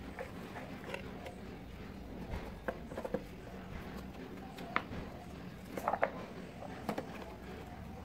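Light clicks and taps of hard plastic as hands handle the opened vacuum cleaner's housing and wiring: a handful of separate knocks, the loudest about six seconds in, over a steady low hum.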